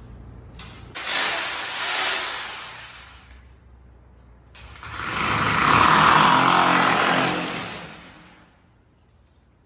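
Corded rotary hammer drill boring into a wall in two runs. The first starts about a second in and lasts some two and a half seconds. The second, louder one runs from about four and a half to eight and a half seconds, each swelling and then dying away.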